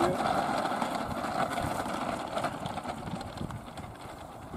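Electric motor and 15x6 propeller of a Carbon Z Cessna 150 RC model plane running at low throttle while it taxis, fading steadily.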